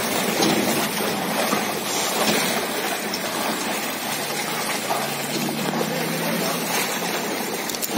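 Continuous splashing and sloshing of shallow water as several people wade through it, plunging bamboo plunge-basket fish traps (polo) into the water.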